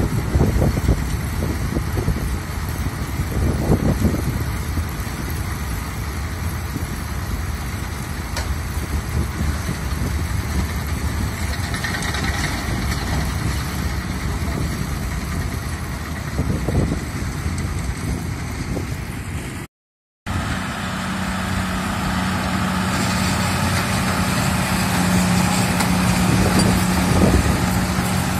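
New Holland 8160 tractor's diesel engine running steadily while it pulls a Krone Comprima round baler baling silage, with a few low thumps along the way. The sound drops out for a moment about two-thirds of the way through, then resumes with a steady low hum standing out.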